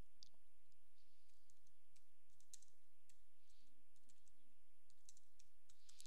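Faint, irregular clicks of typing on a computer keyboard.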